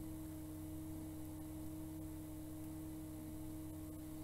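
Steady background hum with a constant pitched tone and nothing else happening.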